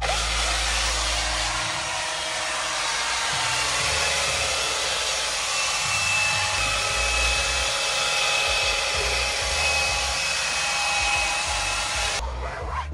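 A small vacuum cleaner's motor runs steadily with a faint high whine while it cleans stains out of car seats, then stops abruptly near the end.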